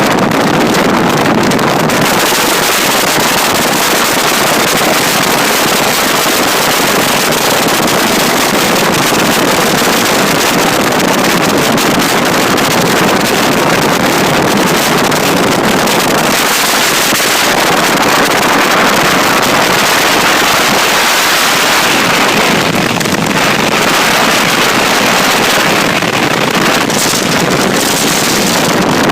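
Heavy wind buffeting a phone's microphone on a bass boat running at speed: a loud, steady rushing noise that drowns out the boat's engine.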